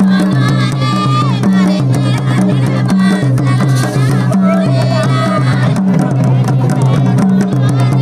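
Music with a steady drum beat, a repeating bass line and a melody line above it.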